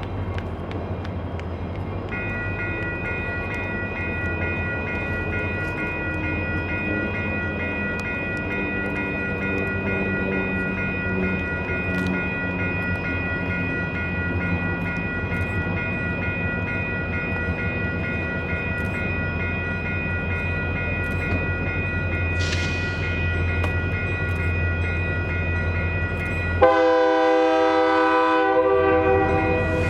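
Union Pacific diesel freight locomotive pulling a train: steady engine rumble with a high, steady whine joining a couple of seconds in. A loud air horn blast of about three seconds comes near the end.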